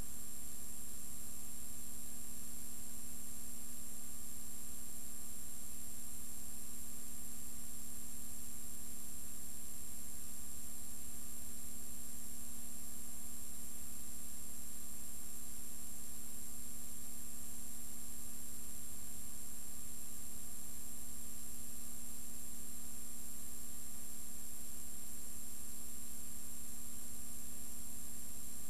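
Steady electrical hum and hiss with a few fixed high whines, unchanging throughout: the noise floor of a silent film's tape transfer, with no other sound.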